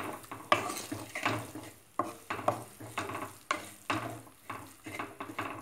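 Wooden spatula stirring and scraping a sautéing onion masala around a frying pan, about two strokes a second, with the filling sizzling in the oil.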